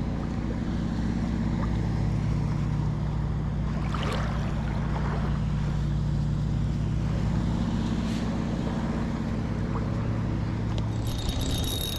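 Motorboat engine running steadily, a low drone that holds for the whole stretch.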